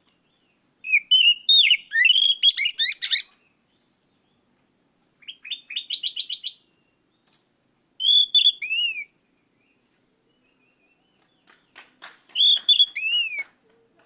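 Oriental magpie-robin singing in four separate bursts a few seconds apart: varied quick whistled phrases, a rapid run of short clipped notes about five seconds in, and sharp rising-and-falling whistles near the end.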